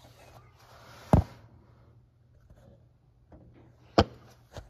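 Three sharp knocks in a quiet room: a loud one about a second in, another at four seconds, and a fainter one just after.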